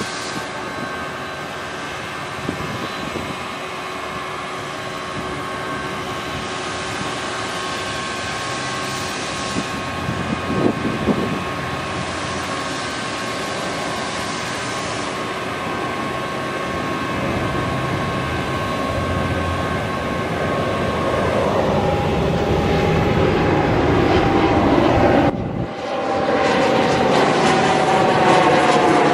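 National 9125A telescopic crane on an International 7500 truck working its boom: the truck engine runs under hydraulic load with a steady hydraulic whine. About three-quarters through the sound shifts and grows louder with a slowly falling tone, cuts out for a moment near the end, then resumes louder.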